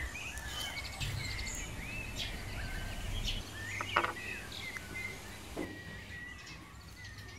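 Small birds chirping over a low outdoor background hiss, with short rising and falling chirps repeating. A brief crackle about four seconds in, from a small foil sachet being handled.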